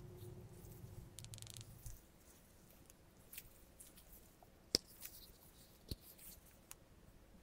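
Apple silicone case for the iPhone 14 handled and pressed onto the phone with gloved hands: faint soft rubbing and light taps, with a sharp click about five seconds in and another about a second later.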